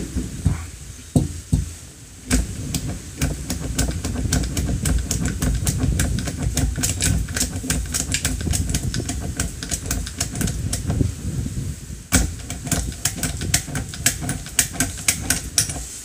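Rapid run of sharp metallic clicks as .22 LR cartridges are stripped one after another from an AR-style .22 conversion magazine with a hand unloader tool and drop onto the pile, over a low rumble of handling. There is a louder knock about twelve seconds in.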